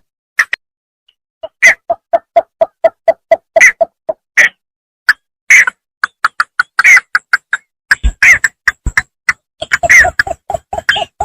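Bittern calling in fast runs of short, even notes, about four a second, mixed with louder, sharper higher-pitched notes. A pause of about a second and a half comes near the start.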